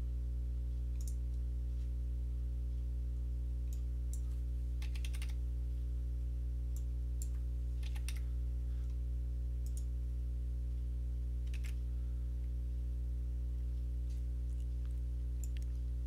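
Scattered computer mouse clicks and keystrokes, with a quick run of clicks about five seconds in, over a steady low hum.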